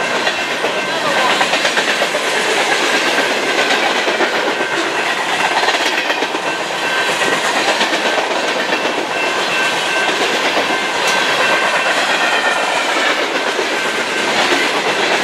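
Freight cars of a long mixed train (tank cars and covered hoppers) rolling past at speed: a steady, loud rumble and clatter of steel wheels on the rail, with a thin high whine running through it.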